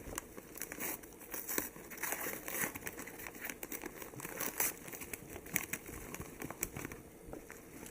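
Packaging crinkling and rustling as a delivered package is opened by hand, with irregular crackles and clicks throughout.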